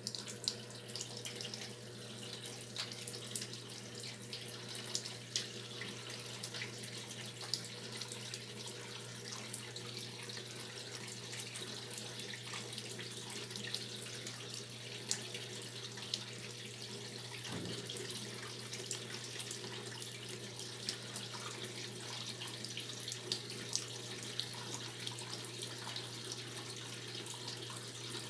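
Brastemp 12 kg top-load washing machine filling with water: water pours into the tub with a steady hiss and small splashes over a steady low hum.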